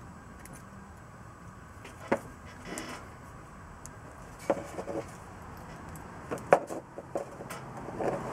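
Scattered light clicks and taps of soft mild steel wire and a small homemade metal wire clamp tool being handled, as the wire ends are threaded through the holes in the tool's rod.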